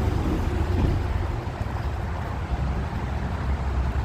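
Steady rumble of highway traffic going by close at hand, with wind buffeting the microphone.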